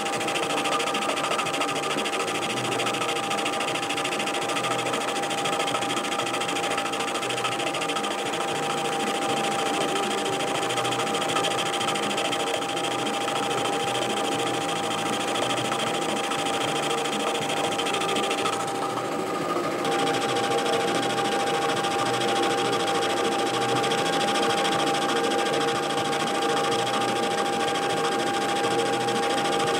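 Metal lathe running steadily with a constant whine while a turning tool cuts down the centre of a connecting rod blank held between chuck and centre. It is an interrupted cut on the not-yet-round bar.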